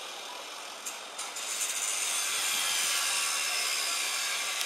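Angle grinder cutting through a metal wheel clamp on a car wheel: a steady, high grinding hiss that grows louder about a second and a half in.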